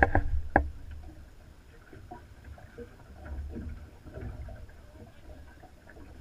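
A few sharp knocks on the aluminium boat deck in the first half second, then a low steady rumble with faint scattered taps and shuffles as the lake sturgeon is handled on the deck.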